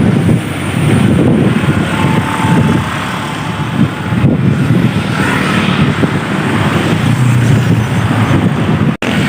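Wind buffeting the phone's microphone on a moving bicycle: a loud, uneven rumble, with road noise mixed in. It cuts out for an instant near the end.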